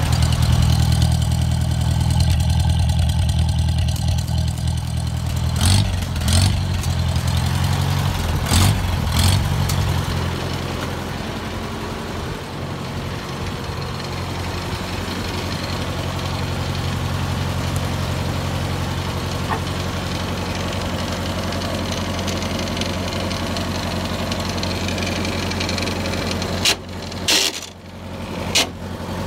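Massey-Harris Pony tractor's small four-cylinder Continental petrol engine running steadily at idle after its first start in months. The running note drops a little about ten seconds in. A few sharp knocks and bumps stand out over it, twice near the start and again near the end.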